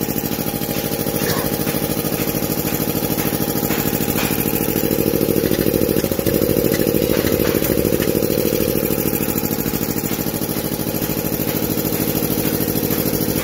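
FS Curtis VA 100 A two-head piston air compressor, driven by a 7.5 hp three-phase motor, running steadily under load as it pumps its tank up toward 8 bar.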